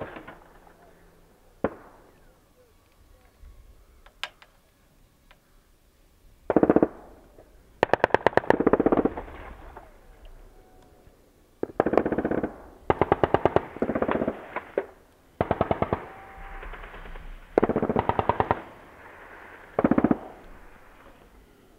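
British Army heavy machine guns (.50 calibre Brownings) firing repeated short bursts of a few rounds each, each burst followed by a rolling echo. After a quiet start with a lone crack, about eight bursts come in the second half.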